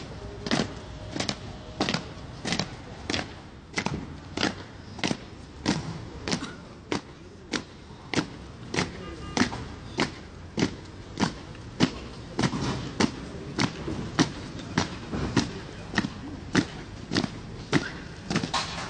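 An honour guard's boots stamping on stone paving in unison in a slow funeral march, one sharp step about every two-thirds of a second.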